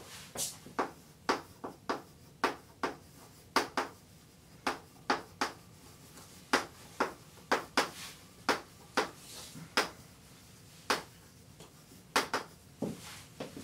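Chalk writing on a blackboard: a string of sharp, irregular taps, about two a second, as the chalk strikes the board, with a few softer scratchy strokes between them.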